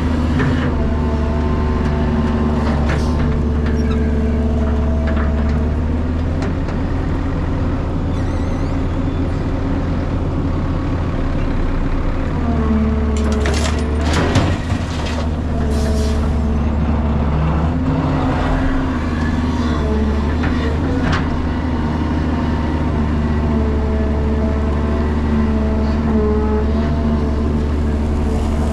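Cat 320GC excavator's four-cylinder diesel engine running steadily, its note shifting under changing hydraulic load as the machine digs and swings. About fourteen seconds in, a bucketful of soil drops into a steel dump-truck bed with a brief clatter.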